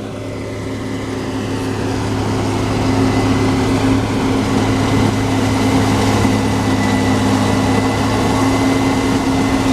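Diesel harvest machinery, a Case IH Axial-Flow combine working with a tractor and grain cart, running steadily with a constant drone. It grows louder over the first three seconds, then holds steady.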